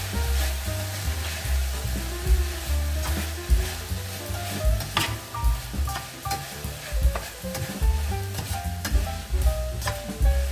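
Venison and diced vegetables sizzling as they fry in a stainless steel pan, stirred with a spoon that scrapes and clicks against the pan. Background music plays underneath.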